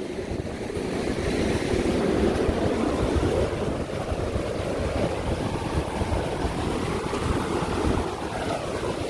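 Surf washing up the beach at the water's edge, mixed with wind buffeting the microphone in a low, fluttering rumble.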